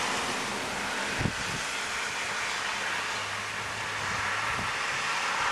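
Thunderstorm wind and rain: a steady hiss, with a brief low thump about a second in and a few weaker ones later.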